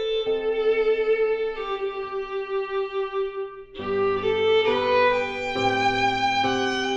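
Solo violin playing a slow melody, its held notes wavering with vibrato, over piano accompaniment that fills out with lower notes about four seconds in.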